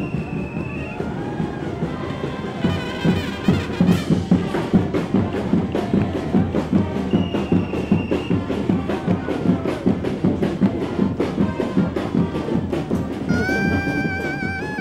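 Street brass band music driven by heavy, steady drumming, with brass and a high held note heard twice.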